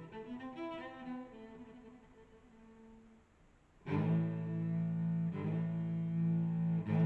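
Background music of bowed low strings; a phrase fades away, then about four seconds in a loud held low chord begins, struck again a couple of times.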